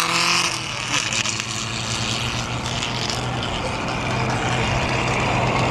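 Engine of a vintage single-seater racing car running at speed as it climbs the hill, a steady drone over road and wind noise.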